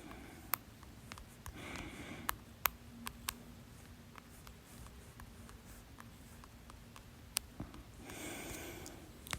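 A person's quiet hiccups, heard as short sharp clicks, several spread through the stretch with the loudest about two and a half seconds in, between soft breaths.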